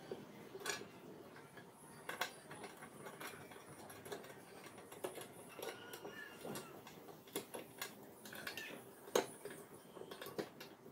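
Scattered light clicks and knocks of metal and plastic parts of an angle grinder cutting stand being handled and adjusted by hand, the sharpest knock about nine seconds in, with quiet room tone between.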